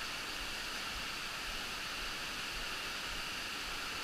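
Steady rush of a waterfall: an even hiss of falling water.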